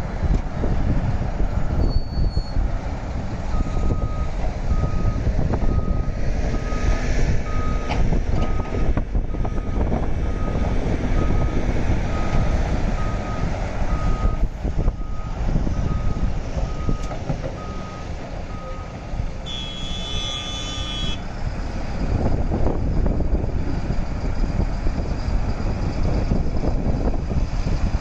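Heavy diesel engines of an excavator and dump truck running with a steady low rumble. A reversing alarm beeps about once a second from a few seconds in until about 19 seconds. Then a horn sounds once for about a second and a half.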